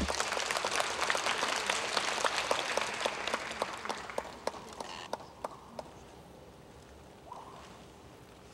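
Audience applause, dense at first, thinning out over about five seconds to a few scattered last claps.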